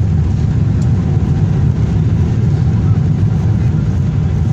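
Steady low rumble of a Boeing 777's engines and rushing air, heard inside the passenger cabin during landing.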